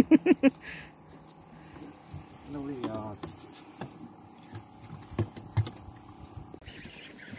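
Insects droning steadily at a high pitch, cutting off near the end. A short burst of a man's voice at the very start, another around the middle, and two sharp knocks a little later sit over the drone.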